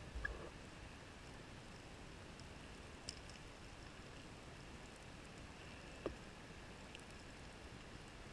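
Faint, steady hiss of underwater ambient noise heard through a camera housing on a reef at depth. A few isolated sharp clicks come through, the loudest just after the start and about six seconds in.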